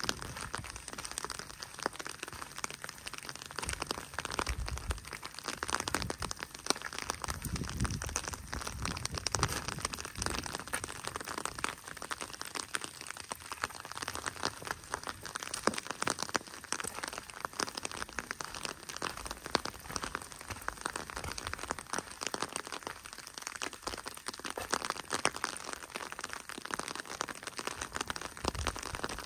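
Footsteps crunching on a loose gravel trail, a continuous run of small crackling crunches.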